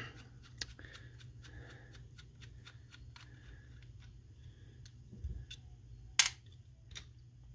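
Faint, scattered clicks of a small screwdriver working the screws out of a Garcia Mitchell 402 spinning reel's gear-side cover, with one sharp click about six seconds in as a loose screw is dropped into a clear plastic parts tray.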